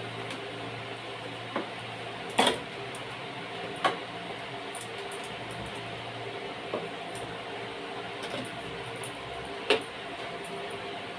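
A handful of short knocks and clunks as the refrigerator is handled during cleaning, the two loudest about two seconds in and near the end, over a steady room hum.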